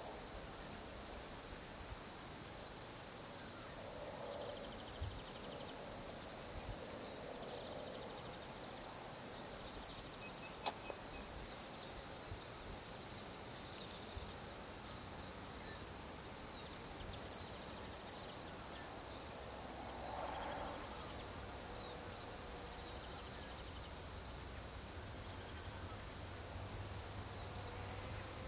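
Steady high-pitched insect chorus over rural outdoor background noise, with a faint low rumble building near the end.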